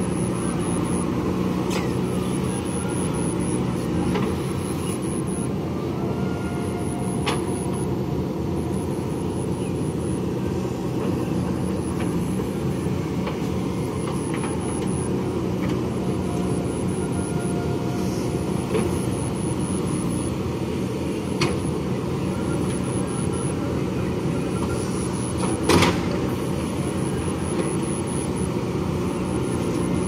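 JCB backhoe loader's diesel engine running steadily while the backhoe arm digs mud, with a few sharp knocks from the digging, the loudest near the end.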